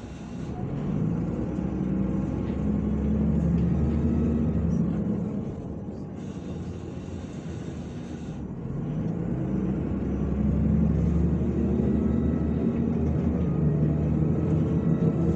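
MAZ-105 articulated city bus heard from inside the passenger cabin, its engine running under load as it accelerates. The engine note climbs, falls back about five seconds in, then climbs again and holds.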